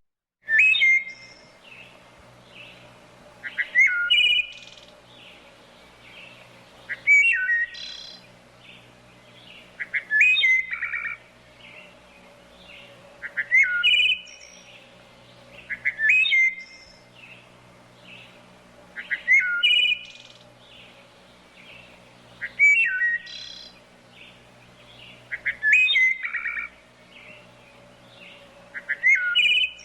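A songbird singing the same short phrase of quick, swooping, whistled notes over and over, about every three seconds.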